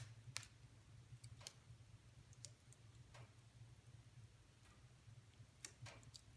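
Wood fire in a fireplace crackling quietly, with scattered sharp pops at irregular intervals over a faint, steady low hum.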